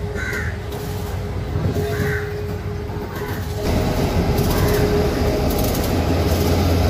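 Diesel locomotive engine idling at a station, a steady low rumble that grows louder about halfway through as the locomotive comes close.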